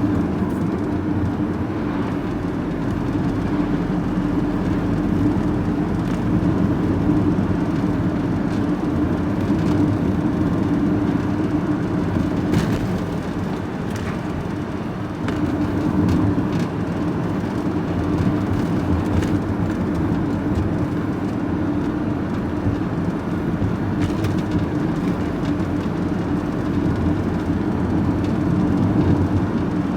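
Steady engine and road drone heard from inside the cab of a moving vehicle, easing briefly about halfway through and then picking up again.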